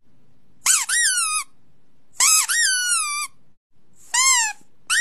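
High-pitched squeaks, four in the space of a few seconds, each rising and then falling in pitch; the last one begins near the end and is held longer.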